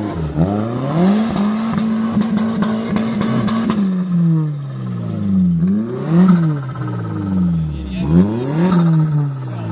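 Suzuki Samurai's engine revving hard as the off-roader churns through a deep mud rut. The revs are held high for the first few seconds, then rise and fall several times under quick changes of throttle. A rapid clatter of thrown mud comes in the first few seconds.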